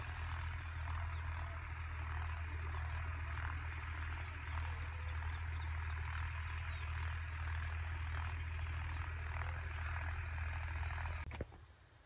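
Steady outdoor ambience: a dense, even chorus of small calls over a low rumble, cutting off suddenly near the end.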